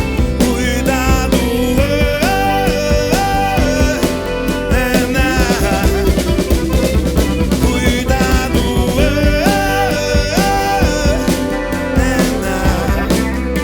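Rock band playing live: drums keeping a steady beat under bass and a melody of held notes that slide between pitches, in a passage without clear lyrics.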